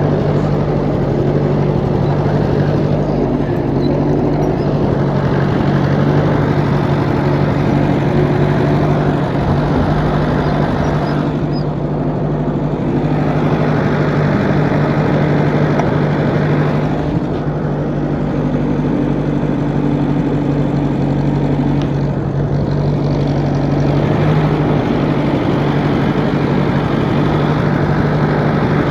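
Tractor engine running steadily with a constant low hum, swelling and easing a little every few seconds, as the tractor works to shift a hitched-up old trailer.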